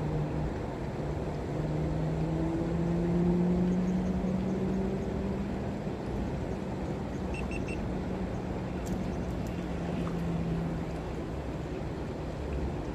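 An engine humming steadily in the background, its pitch rising slightly a few seconds in before it fades out near the end, over a steady low noise.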